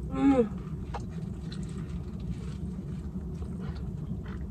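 Steady low outdoor background rumble, with a short hummed vocal sound, like a falling 'mm', a quarter second in and a few faint ticks.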